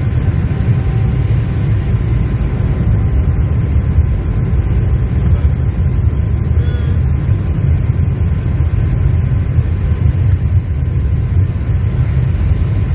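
Steady low rumble of a Boeing 747-8 airliner, with a faint steady tone above it.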